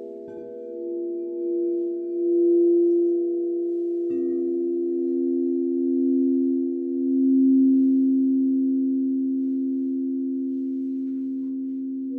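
Crystal singing bowls ringing together as several steady, pure overlapping tones. A new bowl sounds in about a second in and another about four seconds in, and the sound swells and ebbs in slow waves.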